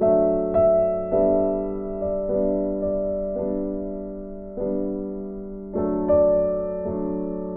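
Background piano music: notes struck about once a second, each ringing and fading before the next.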